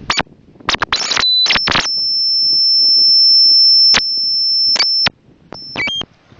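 Electronic beeping: a few short high beeps, then one steady high-pitched tone held for about three and a half seconds that cuts off suddenly, then a few more short beeps.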